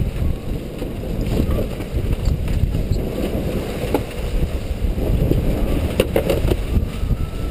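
Wind rumbling on the microphone aboard a sailboat, with water noise, and a few sharp clicks about six seconds in.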